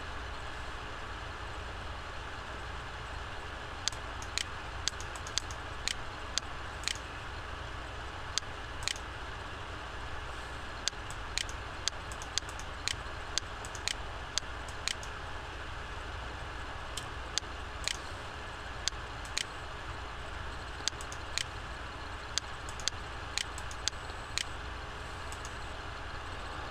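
Irregular sharp clicks of a computer mouse and keyboard, some in quick succession, over a steady background hiss and low hum.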